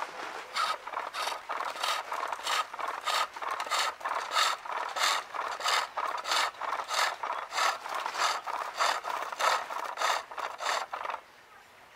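A skew chisel shaving a maple spool turning on a pole lathe. The cut comes in a rhythmic run of scraping strokes, about two a second, as the work spins back and forth, with a short pause near the end.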